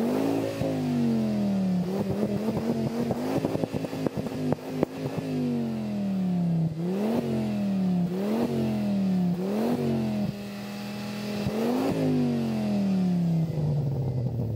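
Ford Focus ST's turbocharged five-cylinder engine revved through its exhaust while standing still. It gives a string of quick throttle blips that rise sharply and fall back slowly, with a longer held rev with crackling from about two to five seconds in, then drops back toward idle near the end.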